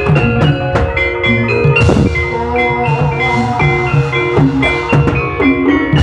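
Gamelan music accompanying an ebeg horse dance: tuned percussion plays ringing notes in an even running pattern over regular drum strokes.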